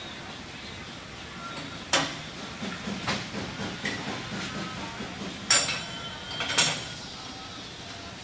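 Four sharp knocks and clanks, in two pairs a little over a second apart, over a steady low background noise; the third is the loudest.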